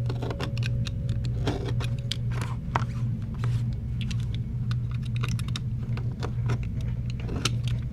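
Irregular small clicks and taps of hand tools working on a phone's frame while adhesive strips are trimmed and pressed on, over a steady low hum.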